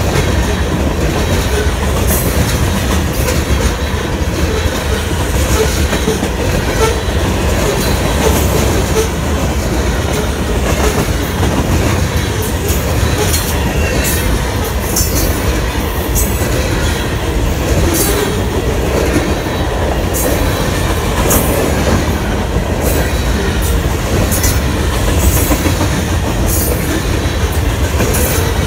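Union Pacific freight train's cars rolling past close by: a steady loud rumble of steel wheels on rail with clickety-clack, and frequent short high-pitched clicks and squeaks from the wheels.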